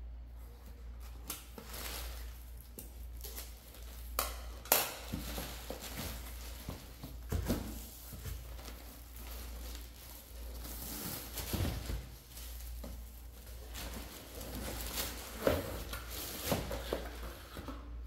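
Crinkling plastic shrink wrap and rustling cardboard as wrapped boxes are handled and pulled from a shipping carton, with several sharp knocks of boxes and lids along the way.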